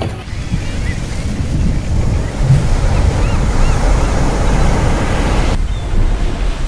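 Ocean surf washing in a steady rush of noise, heaviest at the low end, thinning out about five and a half seconds in.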